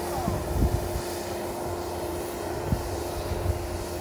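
A steady mechanical hum holding one pitch, over a low rumble with a few soft thumps.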